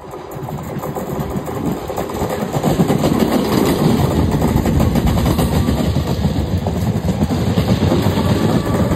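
Class 313 electric multiple unit passing close by: the rumble and clatter of its wheels on the rails build over the first three seconds, then stay loud as the carriages go by.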